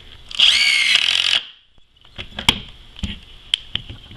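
Bosch 12-volt lithium-ion impact driver running in one short burst of about a second, its whine rising as the motor spins up, then cutting off. A few scattered clicks and knocks of handling follow.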